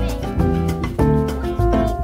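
Background music: pitched instrumental notes over a steady beat.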